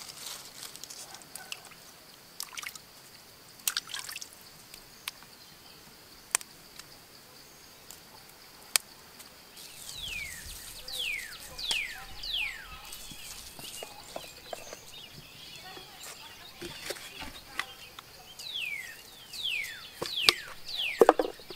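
Quiet outdoor food preparation: scattered small taps and clicks as ingredients are placed into a hollowed gourd, over a steady high-pitched insect drone. Two runs of quick falling chirps come in, one about halfway through and one near the end.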